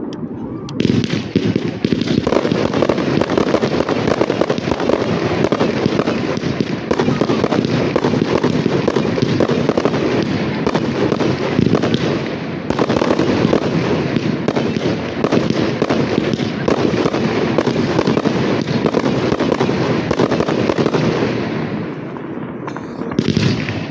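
Fireworks going off in a dense, continuous barrage of bangs and crackling bursts, easing briefly about twelve seconds in and again near the end.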